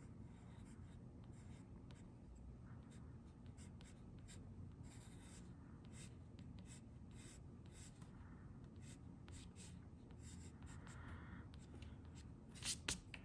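Pencil scratching faintly on paper in many short sketching strokes. A couple of sharper ticks stand out near the end.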